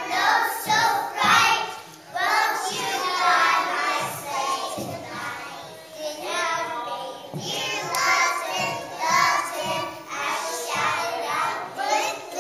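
Group of young children singing a song together, their voices uneven and not quite in unison.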